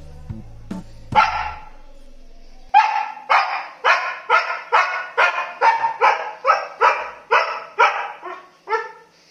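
Small white spitz-type dog barking over and over in quick sharp barks, about two or three a second. The barks start about a second in and tail off near the end.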